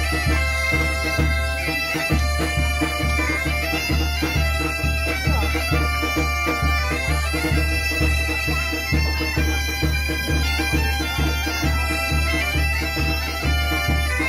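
Background music with a steady pulsing bass beat and a melody of short stepping notes.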